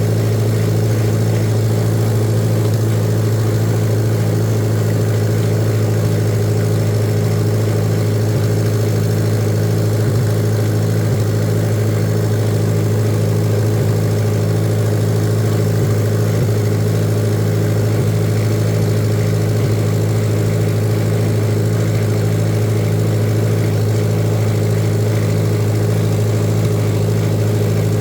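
Tractor engine running steadily at an even speed, a constant low drone with no change in pitch.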